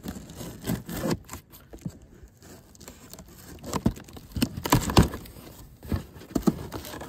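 A cardboard shipping box being cut open with a pocket knife: the blade slicing through packing tape and cardboard, with scraping and rustling and several sharp taps in the second half.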